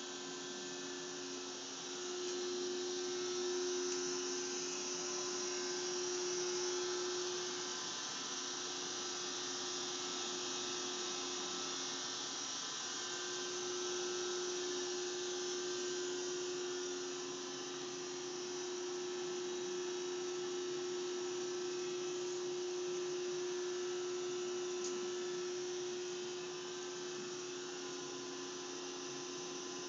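Steady running-machinery hum made of two steady whining tones over a hiss. The higher tone drops away for a few seconds about a third of the way in, then returns.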